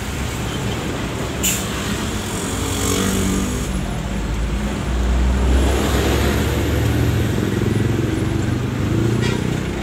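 Delivery vehicle's engine and road noise heard from inside the cab while driving, a steady hum with a brief click about one and a half seconds in. The engine's low rumble grows heavier about five seconds in.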